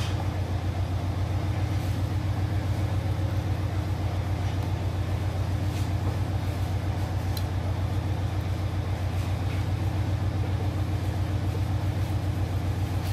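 A motor running: a steady low hum with a fast, even pulse.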